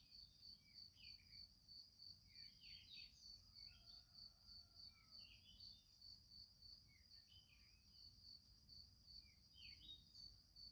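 Near silence with faint background wildlife: an insect, likely a cricket, chirping in a steady even pulse throughout, and scattered short bird chirps.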